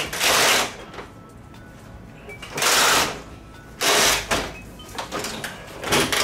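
Large plastic diffuser sheets from a TV's LED backlight rustling as they are lifted and flexed, in four loud swishes.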